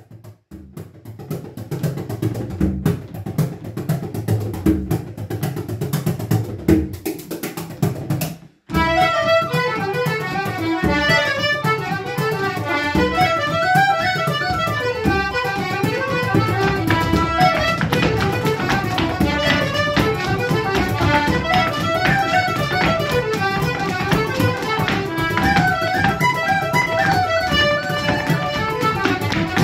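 Irish traditional dance tune played on piano accordion, tin whistle and fiddle. About eight and a half seconds in, after a low rhythmic opening and a brief dropout, the brisk melody starts. Near the end, step dancers' shoes beat on the wooden floor.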